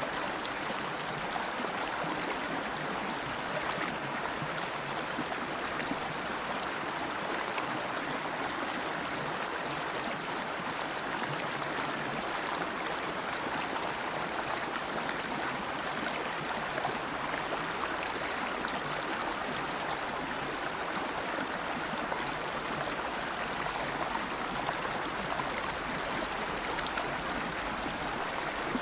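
River water flowing and babbling steadily over stones, a continuous rushing with fine splashing detail.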